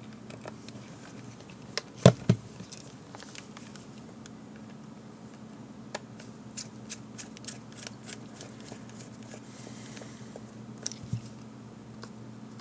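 A precision screwdriver driving small screws back into the plastic case of a Garmin nuvi 1690 GPS, with the unit handled in the hands: scattered light clicks and ticks, with two louder knocks about two seconds in and two more near the end.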